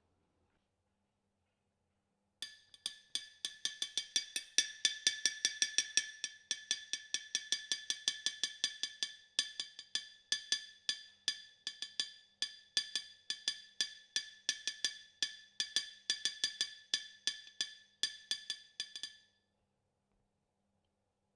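A rapid series of sharp, ringing taps, about three or four a second, starting a couple of seconds in and stopping a couple of seconds before the end.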